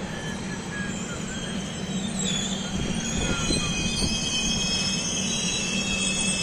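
A passenger train running, its steel wheels squealing against the rails over a steady rumble. The high squealing tones grow stronger from about two seconds in.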